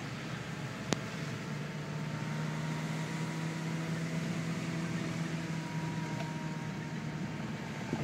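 Car driving along a rutted dirt track, heard from inside the cabin: a steady engine and tyre hum, with one sharp knock about a second in.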